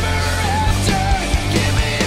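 Background rock music with a wavering lead melody over a full band.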